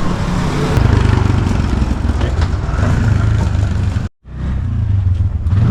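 A small motor vehicle's engine running steadily with road and wind noise; the sound cuts out briefly about four seconds in, then the engine resumes.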